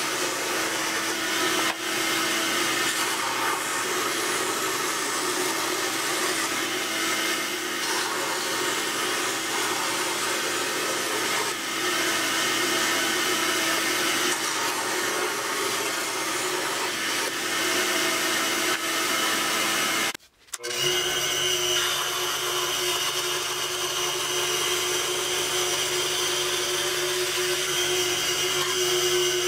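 Scroll saw running and cutting through plywood, a steady machine buzz with a hum. It breaks off for half a second about two-thirds of the way through, then runs on with a slightly different hum.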